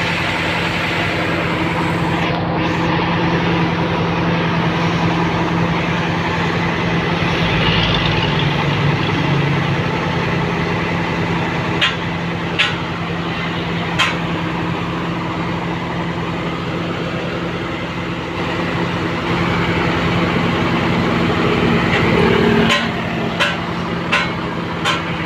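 Hino truck's diesel engine idling steadily while its air conditioning is charged with refrigerant gas. A few sharp clicks come through twice, about halfway through and again near the end.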